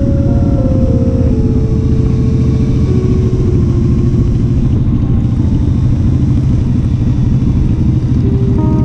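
Honda Shadow Spirit 750's V-twin engine running steadily as the motorcycle cruises, a dense low pulsing heard from the rider's seat. Soft background music with held notes plays faintly over it in the first few seconds and again near the end.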